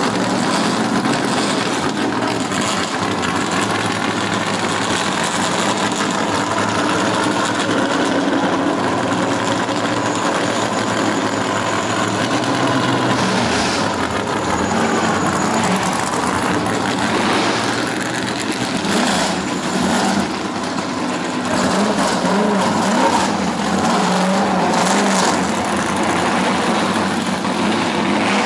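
Vintage Trans Am race cars' V8 engines, a Chevrolet Camaro and an AMC Javelin among them, running loudly as the cars pull away one after another at low speed, the engine note rising and falling several times as they are revved.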